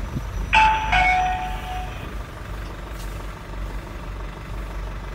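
A truck's engine running low and steady, heard from inside the cab. About half a second in, a loud, brief sound with two falling tones rings out and fades over about a second and a half.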